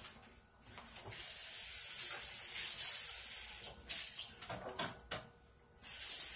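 A steady high-pitched hiss, heard twice: a spell of about two and a half seconds starting about a second in, and another starting near the end.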